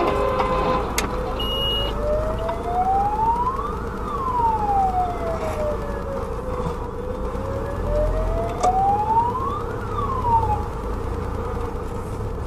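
Fire engine siren wailing in slow sweeps, rising and falling twice over several seconds each; the second fall cuts off short near the end. A steady low rumble runs underneath.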